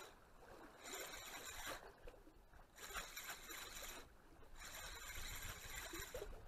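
Spinning reel being cranked in three bursts of a second or so with short pauses between, a fine whirring as a lure is retrieved.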